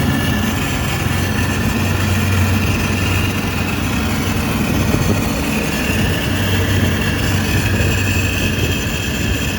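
Marine Power 5.7L Vortec V8 running steadily, held a little above idle, with a faint high tone wavering over the engine note. The owner is chasing a weird noise that only starts once the engine has warmed up.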